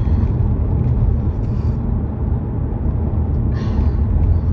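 Steady low rumble of a moving car's engine and tyres, heard from inside the cabin while driving.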